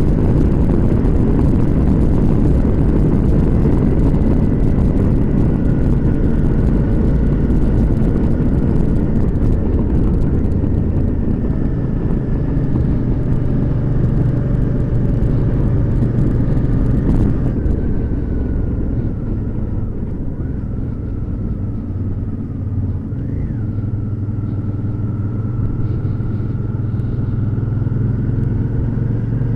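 Motorcycle engine running at road speed with heavy wind noise on the bike-mounted microphone. About two-thirds of the way through the wind rush drops away as the bike slows, leaving the engine's low steady note clearer.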